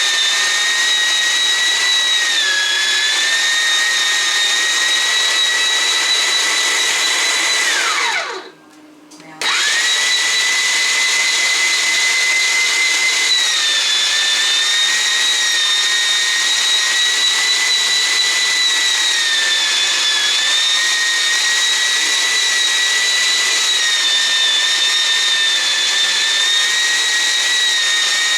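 Keenstar JSMG203 electric meat grinder running with a steady high motor whine, its pitch sagging briefly now and then. About eight seconds in it winds down fast, is quiet for about a second, then starts up again at full speed.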